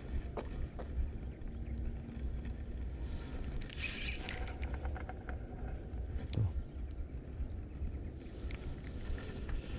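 Insects trilling steadily on one high pitch, with a few faint clicks and knocks about four and six seconds in.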